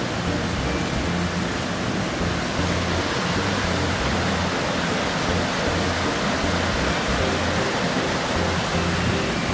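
Small waterfalls and cascades on a rocky mountain stream, water rushing steadily.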